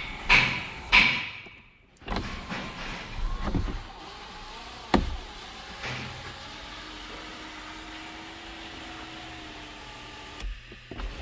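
Power sunroof motor of a 2005 Jeep Liberty running, sliding the glass panel back with a steady whir and a faint hum that stops about ten seconds in. A few loud knocks near the start and a sharp click midway.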